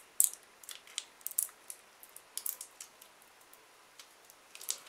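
Small Laffy Taffy candy wrapper crinkling and crackling in the fingers as it is picked at and twisted open, in short irregular crackles with pauses between. The wrapper is really hard to open.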